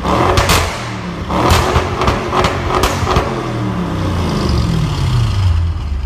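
Audi RS6 C7 Performance's twin-turbo V8 through a Milltek exhaust in dynamic mode, revved hard in quick blips with several sharp cracks and pops on the overrun, then the revs falling away and settling back toward idle.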